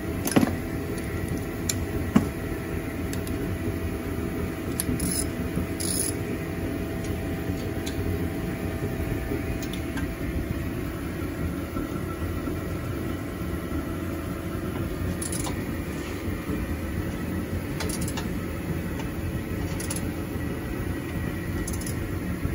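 A steady low mechanical hum, with a few sharp metallic clicks and taps from a hex key and wrench on exhaust header flange bolts and nuts, the sharpest about half a second and two seconds in.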